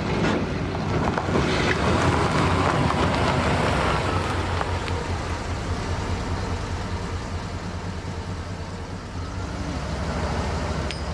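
Pickup truck driving off, its engine loudest about two seconds in and fading as it moves away.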